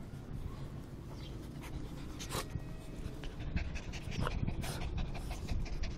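Small dog panting in quick, rapid breaths close by.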